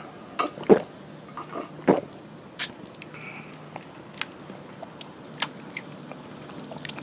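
A man gulping a drink from a glass jar: a few loud swallows in the first two seconds, then scattered small clicks and mouth sounds as he lowers the jar.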